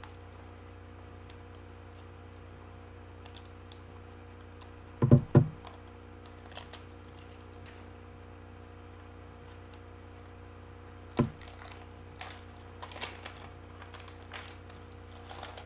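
Scattered clicks, taps and knocks of a plastic CD jewel case being handled and worked open, with a louder cluster of knocks about five seconds in and another sharp knock about eleven seconds in.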